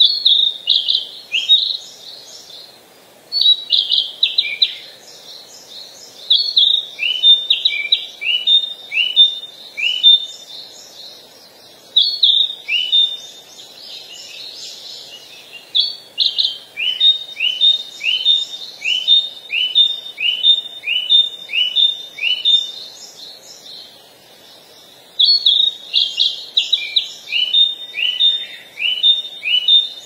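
A songbird singing in repeated bouts every few seconds. Each bout is a quick cluster of sharp high notes that runs into a string of short, falling notes.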